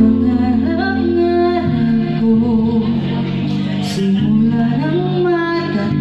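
Woman singing into a microphone over a live band's electric guitar and bass, amplified through PA speakers. She holds long notes and slides up into one about five seconds in.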